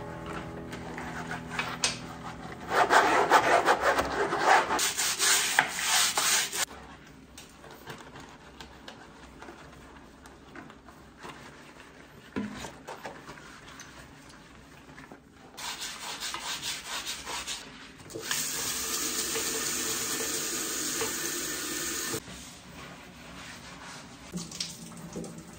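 Rubber-gloved hands scrubbing a ceramic washbasin and chrome faucet, a rough rubbing sound that is loudest for a few seconds near the start. Later comes a few seconds of steady water splashing into the basin as it is rinsed, followed by quieter scrubbing.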